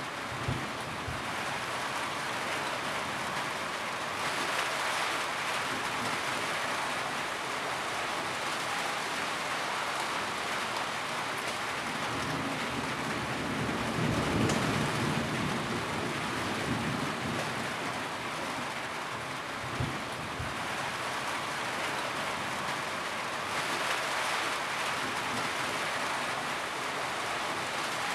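Steady rain falling, an even hiss of drops. A low rumble swells and fades around the middle.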